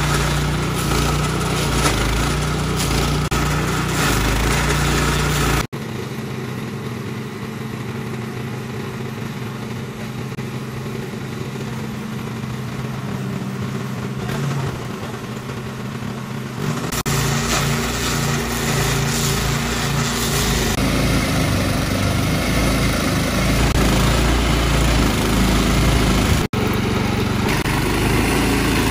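Small petrol engine of a walk-behind stump grinder running hard while its cutter wheel grinds into a tree stump. The sound shifts abruptly three times, and for a stretch in the middle the deep part of the engine note drops away.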